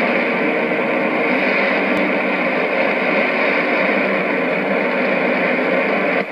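Shortwave AM reception on 6070 kHz through a JRC NRD-525G receiver's speaker: a steady wash of hiss and static with no clear programme audio, and a faint click about two seconds in.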